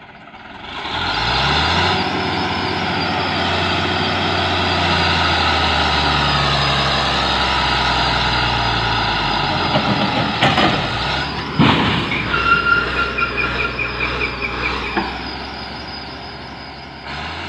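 Tipped-over hydraulic excavator's diesel engine revving up about a second in and running hard as the machine rolls over on the slope, with two loud crashes in the middle as it goes over. After the crashes the engine keeps running more quietly and a high pulsing tone sounds for a couple of seconds.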